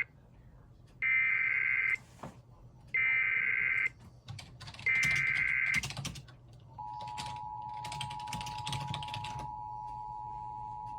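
Three one-second bursts of EAS SAME header data, a screechy two-tone digital warble, about two seconds apart, followed about seven seconds in by the steady two-tone EAS attention signal (853 and 960 Hz). Computer keyboard typing clicks run under the second half.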